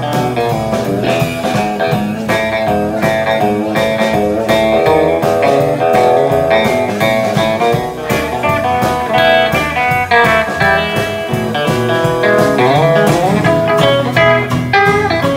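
Country band playing live: electric lead guitar with bent and sliding notes over strummed acoustic guitar, bass guitar and a steady drum beat.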